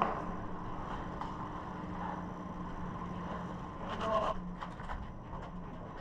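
A steady low hum with faint distant voices, and a brief shout about four seconds in.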